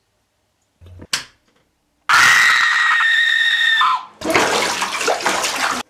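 A short thump about a second in, then a loud, shrill scream held for nearly two seconds. After a brief break, a second, rougher scream-like burst of noise cuts off suddenly.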